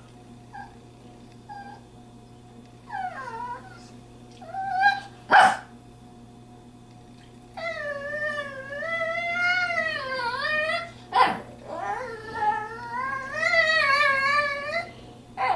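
Shih Tzu whining and 'talking' in long, wavering, human-like moans that rise and fall in pitch, getting longer and more insistent in the second half, with two short sharp sounds about five and eleven seconds in. This is impatient, demanding vocalizing from a dog that wants to leave.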